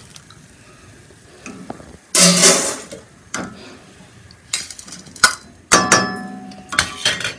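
Perforated stainless-steel ladle clinking and scraping against a steel kadai several times, each knock ringing briefly, as fried boondi is scooped out of the hot oil and left to drain. A short burst of sizzling about two seconds in.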